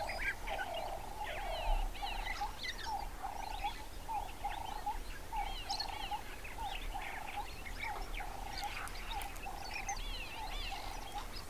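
Savanna birds calling: a low note repeated steadily about twice a second, with scattered higher chirps and trills from other birds over it.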